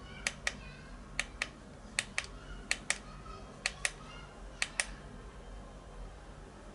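Push-button switch on a plastic LED lamp base with a built-in Bluetooth speaker clicked six times about a second apart, each press a quick double click of press and release, as the base's LED light is switched through its modes.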